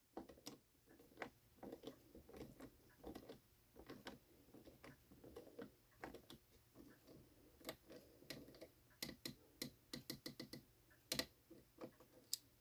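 Faint, irregular small clicks and scrapes of a hand screwdriver turning a small washer screw into a model part, thickening into quicker clicking near the end.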